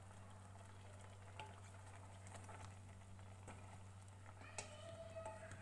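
Faint stirring with a wooden spoon in a stainless steel pot of simmering chicken, potatoes and carrots: a soft sizzling haze with a few light taps and scrapes of the spoon. A steady low hum lies underneath.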